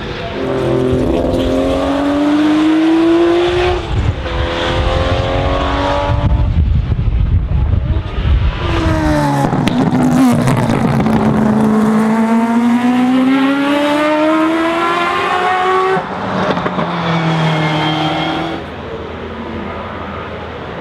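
Le Mans-era racing car engine at full throttle, its pitch climbing in long pulls broken by gear changes. Around ten seconds in the pitch drops, then climbs again. It is quieter near the end.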